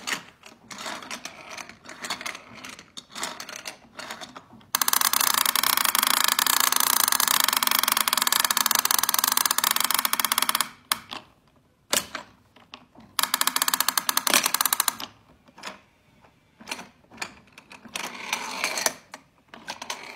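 Plastic car-ramp track toy worked by hand: clicks and rattles of its buttons, levers and small cars. There is a long run of fast, even ratcheting clicks from about five to eleven seconds in, and a shorter run near fourteen seconds.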